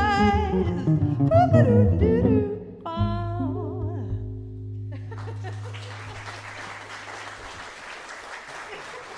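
A jazz vocal, guitar and bass trio playing the last bars of a song: a sung note with vibrato, a few closing vocal and guitar phrases, and a held low bass note that fades out. About five seconds in, the audience starts applauding.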